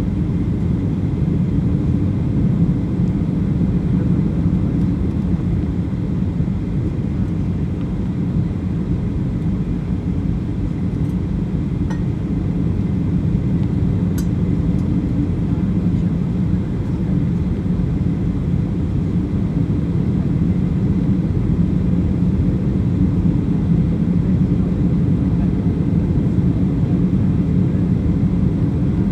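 Steady low drone of a Boeing 737-800's CFM56 engines and rushing airflow inside the passenger cabin, on approach for landing. A couple of faint ticks are heard about halfway through.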